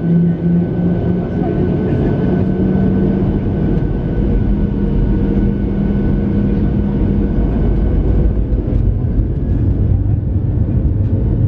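Cabin sound of a Boeing 737-800's CFM56 jet engines spooling up for takeoff: a steady hum steps up in pitch about two seconds in, then a heavier rumble builds from about eight seconds in as the jet starts its takeoff roll.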